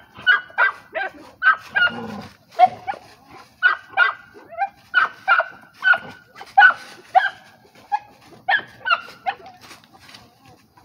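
A pit bull terrier working a springpole tire makes short pitched cries, two or three a second, as it hangs on and tugs.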